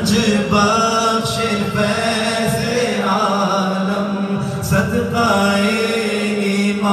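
A man singing a naat, an Urdu devotional song, into a microphone in long held lines over a steady low drone.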